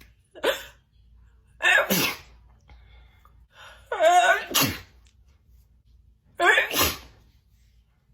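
A woman sneezing in a fit: three loud, messy sneezes about two and a half seconds apart, with a shorter, quieter burst just before the first.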